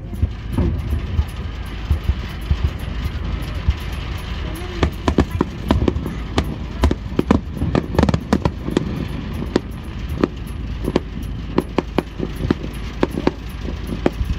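Aerial fireworks going off: sharp bangs and crackles in quick succession, few at first and coming thick and fast from about a third of the way in, over a steady low rumble.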